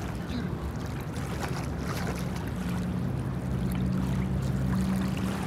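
Motorboat engine droning steadily over water noise, its low hum growing stronger about halfway through.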